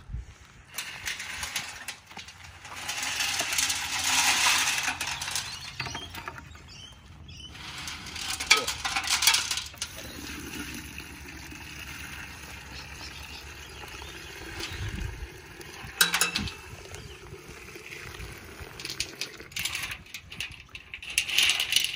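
Wet brass rifle cases sliding and clinking together inside a tilted cement-mixer drum as the dirty, soapy tumbling water is poured off into a plastic bucket. Through the middle there is a steady run of water into the bucket, with a few sharp clinks.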